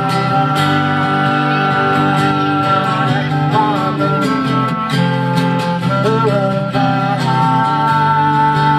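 Live acoustic band music: strummed acoustic guitar with cello and clarinet, the clarinet holding a long steady note near the end.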